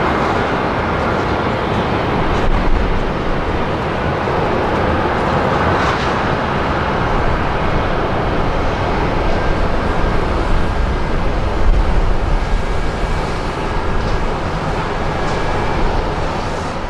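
Airbus A340-300's four CFM56 turbofan engines at taxi idle: a steady jet rumble and hiss, with a faint steady whine coming in over the second half.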